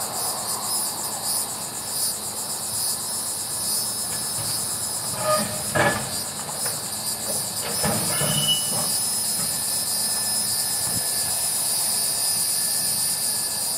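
A rail grapple truck's knuckle-boom grapple working in a steel gondola as it grips a load of concrete cross ties, giving a few metallic clanks and knocks with brief ringing about halfway through. A steady chorus of insects buzzes behind it.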